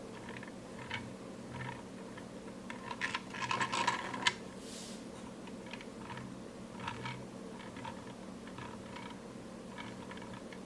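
Plastic toy dump truck being handled, giving light clicks and rattles that are busiest and loudest about three to four seconds in.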